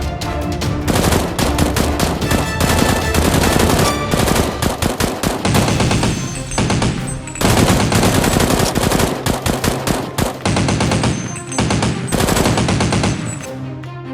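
Rapid bursts of automatic gunfire sound effects, with a few short breaks between bursts.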